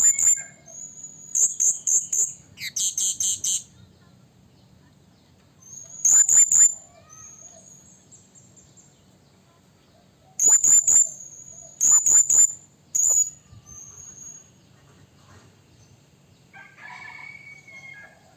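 Blue-crowned hanging parrot (serindit) calling: very high, thin, sharp notes in quick runs of three to five, repeated several times with pauses between. These are calls to rival birds.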